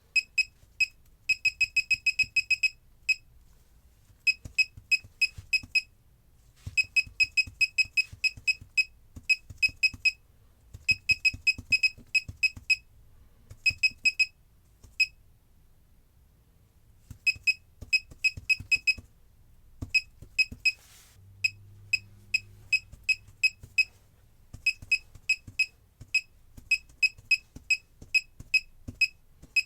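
Laser projection keyboard giving a short electronic click-beep for each key press during fast typing. The beeps come in quick irregular runs with brief pauses between them.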